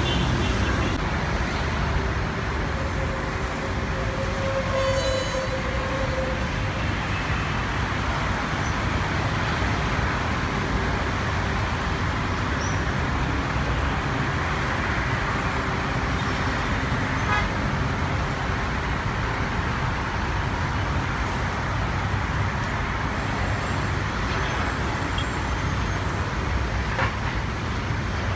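Steady road traffic on a busy multi-lane avenue, with cars and motorbikes passing. About three seconds in, a tone is held for a few seconds.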